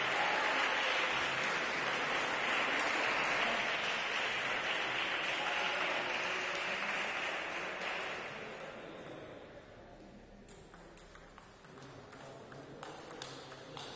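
Spectators applauding, fading out over about eight seconds. Near the end come the clicks of a table tennis ball off bats and table as a rally starts.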